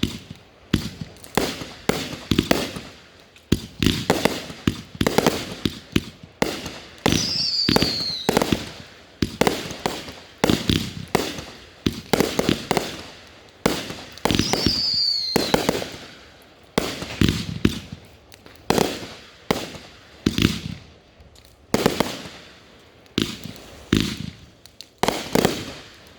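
Consumer aerial fireworks going off in a rapid series of sharp bangs, about one a second, each with a trailing echo. Two high whistles fall in pitch, about a third and halfway through.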